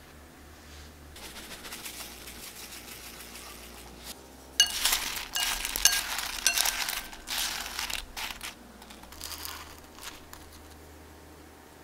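Donut holes being tossed in granulated sugar in a cloth-lined glass bowl with two wooden utensils: sugar rustling and crunching, with the wood clicking and clinking against the glass bowl. The clatter is loudest in the middle, then eases to lighter stirring.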